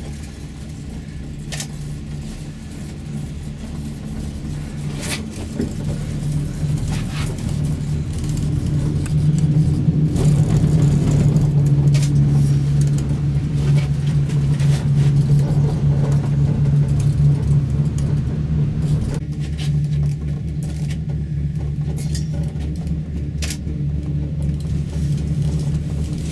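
Steady low hum and rumble inside a moving gondola cabin travelling along its cable, building louder toward the middle and then easing off, with a few scattered clicks.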